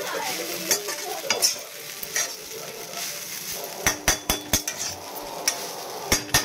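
Poha sizzling in a kadhai while it is stirred and scraped with a slotted metal spoon. About four seconds in comes a quick run of sharp metallic clinks that ring briefly, with a couple more near the end.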